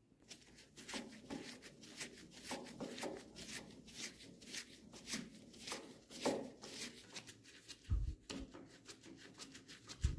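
Flat-blade screwdriver turning slotted screws through a rubber butt pad into a wooden air-rifle stock: a run of small scraping clicks, a few a second. Two dull thumps come near the end.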